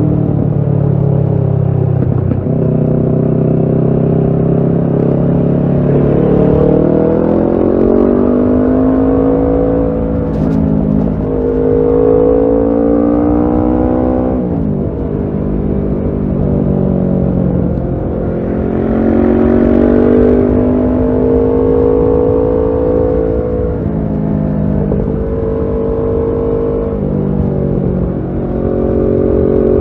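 Kawasaki Ninja 650's parallel-twin engine through a Shark SRC-4 aftermarket full exhaust system, riding. The engine note climbs steadily and then drops sharply, again and again, as the bike pulls up through the revs and shifts or eases off the throttle.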